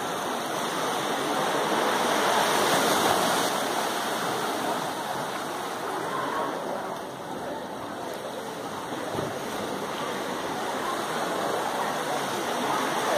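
A steady rushing noise that swells and eases slowly.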